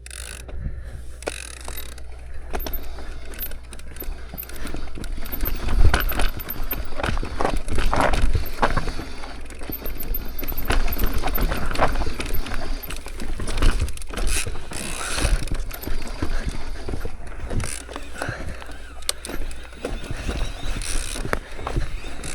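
Mountain bike rolling down a rough, rocky trail: the rear hub's freewheel ratchets, and the chain and bike rattle and knock over the rocks, over a steady low rumble.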